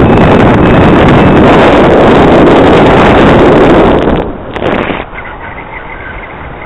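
Wind buffeting the microphone of a camera carried in flight under a paraglider: a loud, even rush that drops sharply about four seconds in to a much softer rush.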